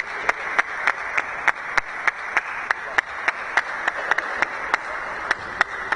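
Arena crowd noise with a steady beat of rhythmic unison clapping, about three claps a second, over the spectators' hubbub.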